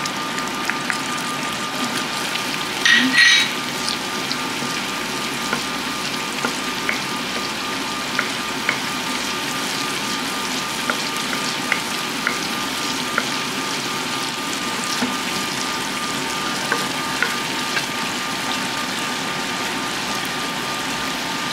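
Butter and buffalo hot sauce sizzling in a stainless saucepan as a wooden spoon stirs it, with small pops and crackles throughout. A short louder burst comes about three seconds in.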